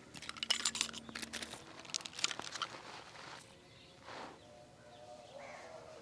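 Dry fallen leaves and ground litter crackling and crunching as things are set down and moved about on them, a dense run of sharp crackles in the first three seconds, then quieter.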